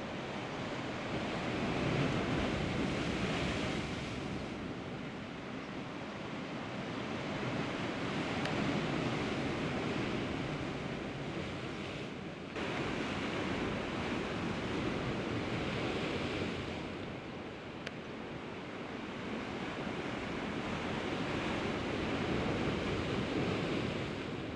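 Sea surf washing against a rocky shore, swelling and fading in slow surges every six or seven seconds.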